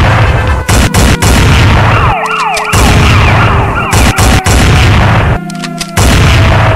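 A police siren wailing up and down beneath loud booming noise that cuts out briefly several times, leaving the siren exposed in the gaps.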